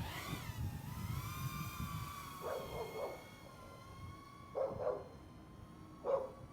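FPV quadcopter's brushless motors (T-Motor Pacer 1804 2400kv on 6S) and 3.5-inch props whining as it takes off: the pitch drops over the first second, then holds steady. A dog barks in three short bouts over it.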